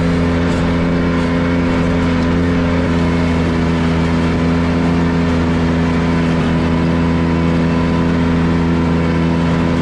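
Ventrac 4500Z's Kubota gas engine running steadily at constant speed while its front-mounted Tough Cut deck mows grass.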